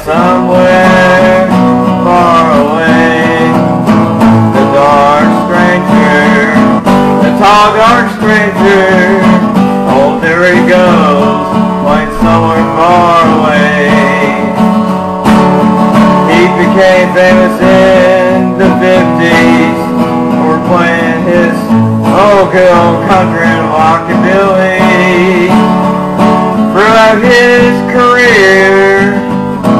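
A man singing a country song and playing acoustic guitar.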